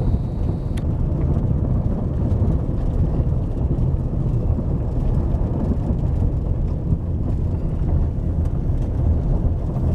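Car driving along a gravel road, heard from inside the cabin: a steady low rumble of tyres and engine.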